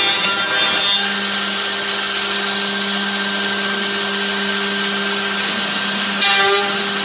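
CNC woodworking machine running, its spindle giving a steady hum over the noise of cutting wood. A louder, many-toned sound in the first second drops away, and there is a brief louder swell about six seconds in.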